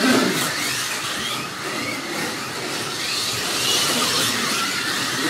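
Slot cars running laps on a large multi-lane track: the whir of their small electric motors and the cars rushing along the slots, rising and falling as they pass.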